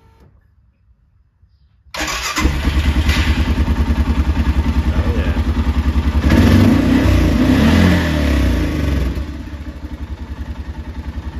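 A 2012 Arctic Cat TBX 700 utility vehicle's engine starts suddenly about two seconds in, runs louder for a few seconds, then settles to a steady idle. It starts and runs on a fuel pump just fitted with a new seal, after the old seal had failed and left the engine unable to start.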